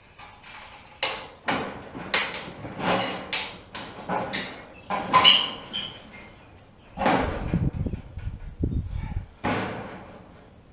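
Steel clanking and knocking as the sheet-steel sections of a Little Giant elevator are fitted and bolted together at a splice plate: a quick run of sharp knocks, some ringing briefly, then a heavier, deeper clanking and rumble about seven to nine seconds in.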